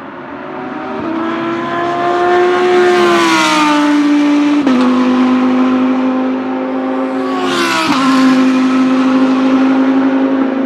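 V10 GT3 race car engine pulling hard on track: its note climbs under acceleration and drops sharply at an upshift about a third of the way in, then climbs again and drops at a second upshift near three-quarters of the way.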